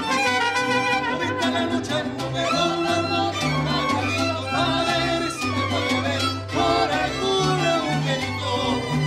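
Mariachi band playing live: bowed violins carry the melody over a plucked guitarrón bass line and guitars, with no singing.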